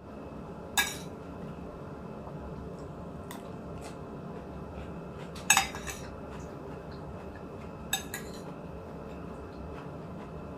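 Cutlery clinking against a plate in short, sharp strikes: one about a second in, a couple around three to four seconds, a louder cluster about halfway, and two more near the end, over a steady low background hum.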